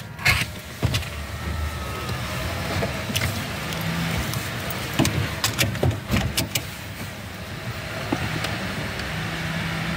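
Fried chicken being bitten and chewed, with scattered crisp clicks and crunches, thickest about halfway through, over a steady low hum inside a car.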